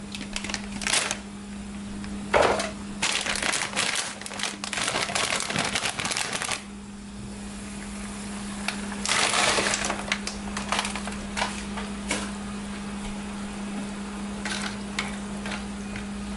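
Plastic bag of cut okra crinkling and rustling as it is handled and opened, then a second rush of noise as the okra is tipped into the simmering pot, followed by a few light clicks.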